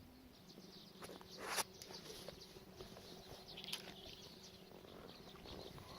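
Faint bird chirps over soft water sounds, with one louder swish that swells and cuts off about a second and a half in.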